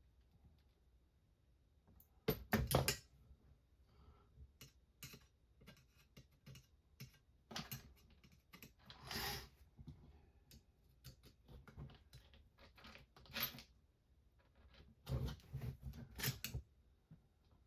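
Irregular small clicks, taps and knocks of plastic and metal RC kit parts and a hand tool being handled during assembly, with louder clusters of knocks about two seconds in and near the end, and a short scrape around the middle.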